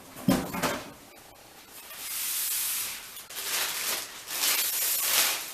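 Cardboard box and packaging rustling and scraping as a pressure canner is pulled out of its box, with a couple of short knocks in the first second.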